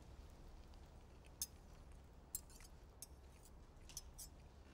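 Near silence with a few faint, sharp clicks of cutlery against a plate as a dish is tasted, the clearest about one and a half seconds in.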